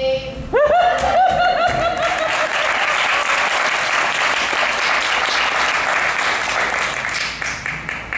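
Audience applauding, with a few voices whooping and cheering in the first couple of seconds.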